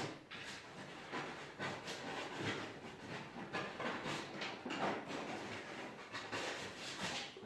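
Coarse sandpaper rustling and scraping as it is handled, in a string of irregular strokes.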